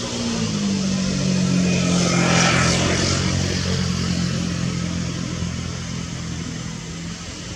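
A motor vehicle's engine running steadily, its tone dropping slightly just after the start, with a rush of noise that swells and fades as it passes.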